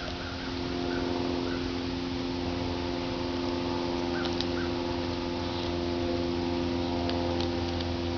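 Border collie chewing raw chicken, with a few faint crunches, over a steady hum. Birds chirp faintly now and then.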